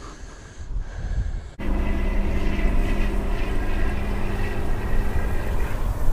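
Wind rumbling on the microphone, with the steady hum of a distant engine. It gets suddenly louder about a second and a half in, and the hum fades out near the end.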